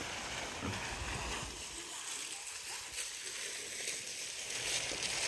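Small courtyard fountain's single jet splashing into its shallow basin, a steady watery hiss, with some low rumble during the first second and a half.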